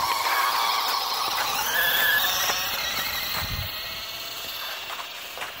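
RC car's motor whining and rising in pitch as it speeds off, with tyre hiss over wet, slushy pavement, fading as it gets farther away.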